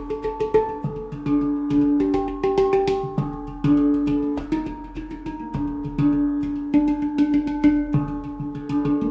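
Golden Sound handpan in the Pygmy scale played with the fingers: quick taps on the tone fields ring out as overlapping steel notes, mixed with repeated low strokes in a flowing rhythm.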